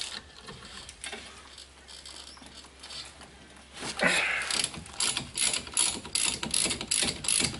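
Socket ratchet clicking in quick, even strokes, about three a second, as a 14 mm brake caliper bolt is backed out. The clicking starts about four seconds in; before that there are only a few faint knocks of tool on metal.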